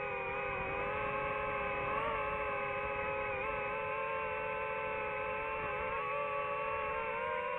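DJI FPV drone's motors and propellers whining steadily in flight, a layered buzzing tone whose pitch dips and rises slightly as the throttle changes.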